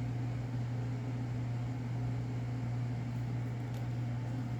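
Air conditioning running with a steady low hum and a soft hiss of air.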